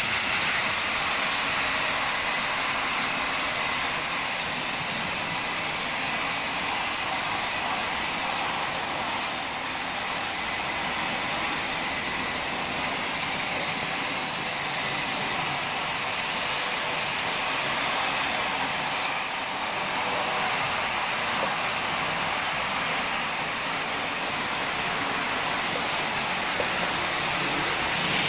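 A Märklin Delta BR41 model steam locomotive running on Märklin K-track and M-track: a steady whirr of its motor and wheels rolling on the rails.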